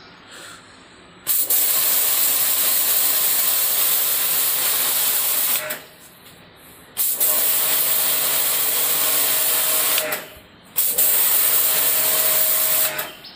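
Ballorex KS-7 2300 W electric pressure washer spraying a high-pressure water jet onto a concrete floor: a loud hiss over a steady motor hum, in three bursts of a few seconds each with short pauses where the trigger is let go.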